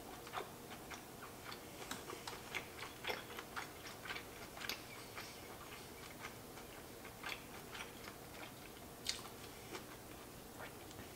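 Irregular small clicks and crackles of a person eating lobster: shell being handled and picked, and chewing. A sharper click comes about nine seconds in.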